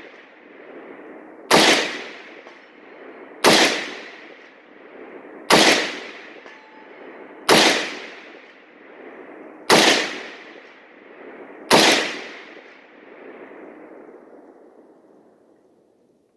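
AK-47 rifle fired six times in slow, aimed semi-automatic shots about two seconds apart. Each sharp report is followed by a long echo rolling back from the surrounding forest, and the last echo fades away near the end.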